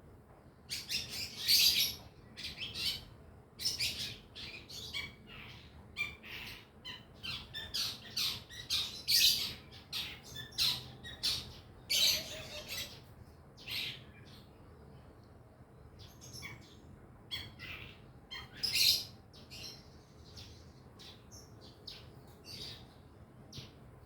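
Long-tailed shrike (cendet) singing in a young bird's practice song: busy bursts of quick, scratchy twittering and chattering notes with short gaps, loudest in the first half.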